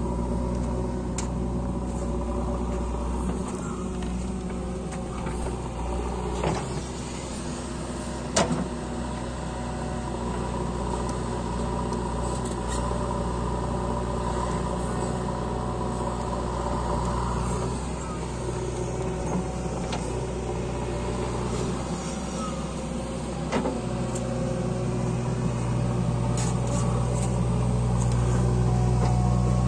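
Diesel engines of a JCB backhoe loader and a tractor running steadily while the backhoe digs, with a few sharp knocks. A little after two-thirds of the way through, the engine note gets louder and heavier as the backhoe works under load.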